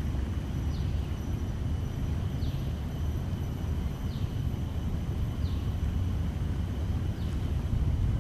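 Outdoor background: a low steady rumble, with a faint short falling chirp five times, every one to two seconds, over a faint steady high whine.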